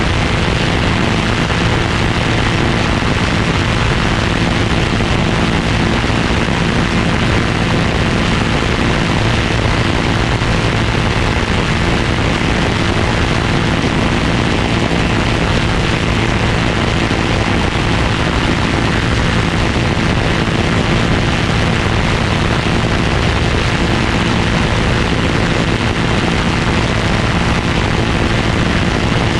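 Loud, steady rushing noise with a low drone under it, unchanging throughout: bad audio recorded by a GoPro Hero 6.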